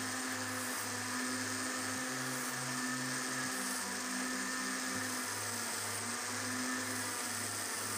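Small electric motor running steadily, spinning a sanding disc as a piece of wood is pressed against it and sanded.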